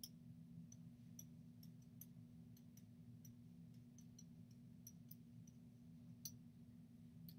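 Near silence with faint, irregular ticks, about two a second, from a stylus tapping on a writing tablet as handwriting is added, over a low steady hum.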